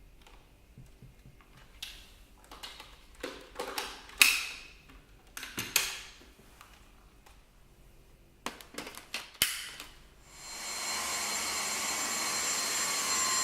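Handling clicks and knocks on the Dyson V6 cordless stick vacuum, then about ten seconds in its motor starts and runs with a steady high whine, powered by the newly fitted battery.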